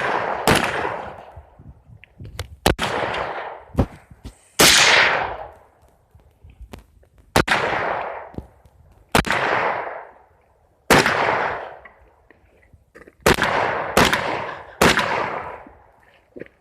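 AKM rifle (7.62×39 mm) fired in single aimed shots, about eight in all, one every one to two and a half seconds, each crack followed by a long echoing tail.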